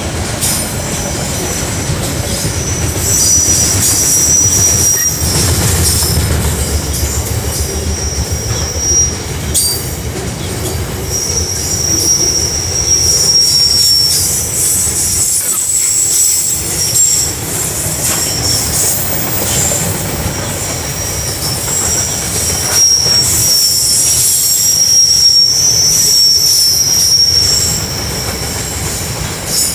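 Container wagons of a freight train rolling past at close range: a steady rumble of wheels on rail with scattered clicks and clatter from the wheels over rail joints. A thin high-pitched wheel squeal comes and goes several times.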